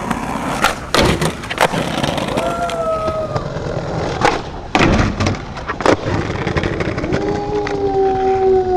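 Skateboard wheels rolling on concrete, with several sharp clacks of the board popping and landing, most of them in the first six seconds. Two drawn-out tones stand out, a short one a few seconds in and a longer one near the end.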